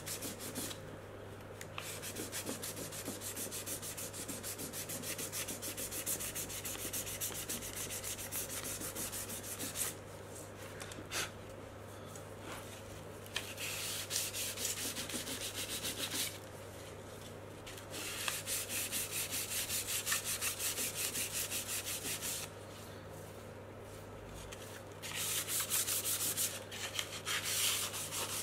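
Sandpaper rubbed by hand in quick back-and-forth strokes along the edge of a wood-veneered cabinet corner, in several spells with short pauses between them, smoothing the veneer edge flush at the corner.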